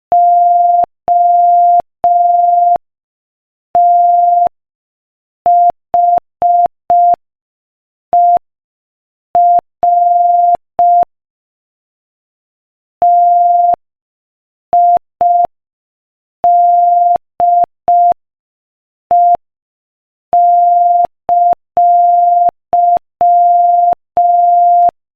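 Morse code sent as a single steady tone of about 700 Hz, keyed on and off in short dots and longer dashes at 5 words per minute. The tone groups into letters separated by short gaps, with a longer silence of about two seconds near the middle between words.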